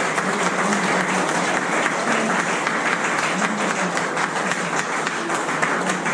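Guests applauding: dense, steady clapping from many hands.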